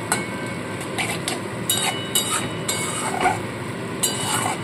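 Onion and ginger-garlic-chilli paste frying in a metal kadai, a steady sizzle, with a metal spatula scraping and stirring against the pan several times. The masala is being fried to drive off the raw smell of the ginger and garlic.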